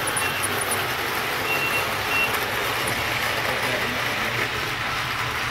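H0 model freight trains running on the layout, a steady rolling hiss of the running trains and the room. A few short high beeps in the first couple of seconds.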